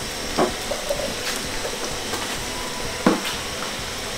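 Steady sizzle of potato chunks frying in oil in a pan, with a few light clicks and taps of utensils.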